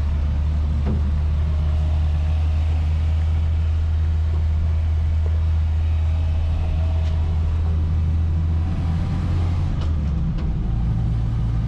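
Land Rover Series 3 engine and drivetrain droning steadily, heard from inside the cabin while driving. Near the end the drone breaks and comes back higher in pitch.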